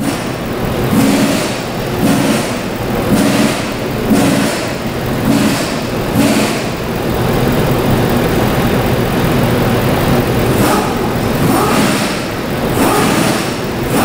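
A steady mechanical running noise like an engine, with a soft low pulse about once a second through the first half.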